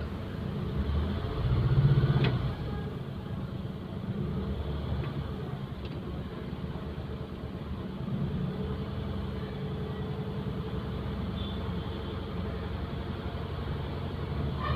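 Maruti Suzuki 800's three-cylinder petrol engine idling, with a brief light rev about two seconds in and smaller blips later. It runs with its alternator and AC drive belts removed, and the noise the owner complained of does not appear.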